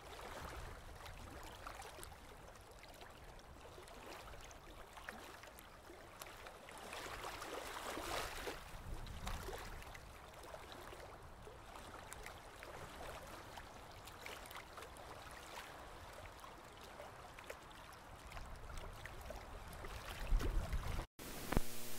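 Faint water sound: a steady rushing, bubbling hiss with scattered crackles, swelling about eight seconds in and again near the end.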